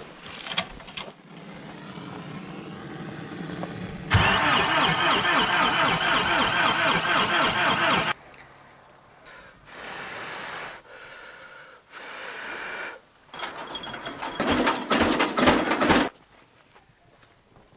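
Old diesel tractor engines being cranked and started in the cold, in several short clips cut together, with a petrol blowtorch used to preheat the engine. The loudest stretch is a steady, fluttering engine sound from about 4 to 8 seconds in; the other clips are shorter and cut off abruptly.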